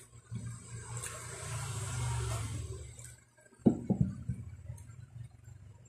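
Spicy instant noodles being slurped: a wet, hissing slurp that swells for a couple of seconds and fades, then a few loud wet smacks of chewing close to the microphone.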